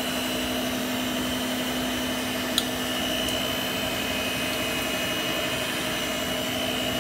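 A steady machine hum, a whirring noise with a constant low drone and a faint high whine that does not change, with one small click about two and a half seconds in.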